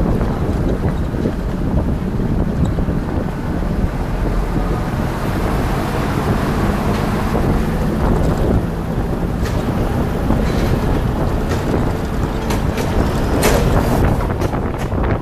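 Wind buffeting the microphone over the engine and road noise of an open Beijing Jeep driving along a street, with a few sharp clicks near the end.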